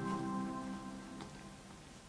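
Gentle background music: a held chord fading out, with a few faint light ticks about a second in.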